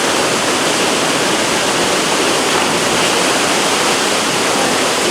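Loud, steady rush of falling river water.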